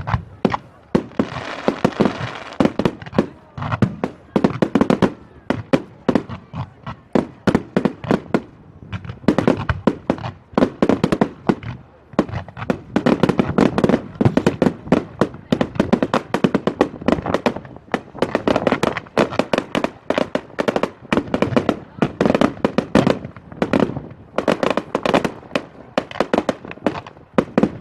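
Fireworks display going off in a continuous barrage of rapid bangs and crackles, many reports a second with no break.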